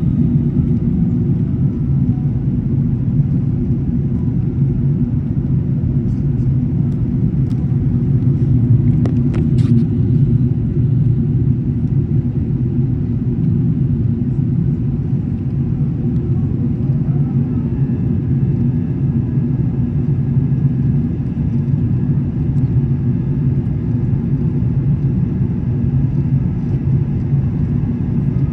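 Steady low rumble of an Airbus A380 airliner, with its engine and airflow noise running unchanged throughout.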